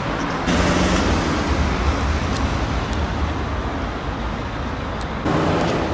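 Street traffic with a car engine's low rumble, which sets in abruptly about half a second in and drops away near the end.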